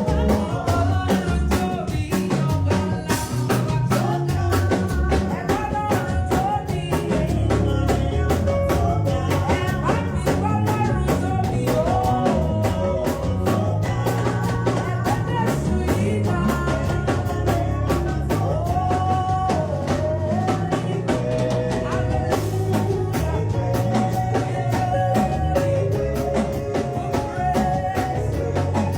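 A live band playing a song: a drum kit keeping a steady beat under a bass line, with a sung melody over it.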